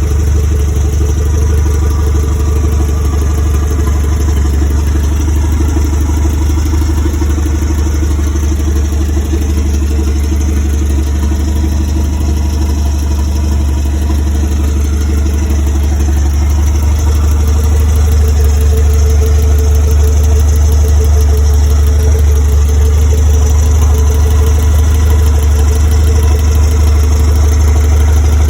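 Car engine idling steadily with a deep, even hum. It gets slightly louder about two-thirds of the way through.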